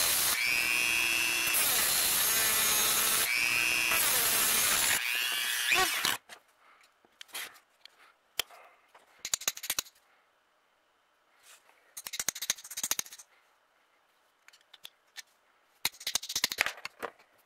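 Dremel 3000 rotary tool with a cutoff wheel running at high speed and cutting, in several passes, its whine picking back up after each short break, until it is switched off about six seconds in. After that, small metal clicks and short scraping rattles come as rivets and small parts are worked loose with a screwdriver.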